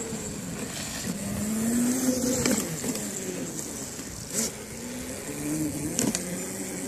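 Electric drive motor of a 300-watt Cruzin Cooler motorized cooler with a performance kit whining under the load of a heavy rider in grass, its pitch rising and falling as the speed changes. A few short sharp clicks come through along the way.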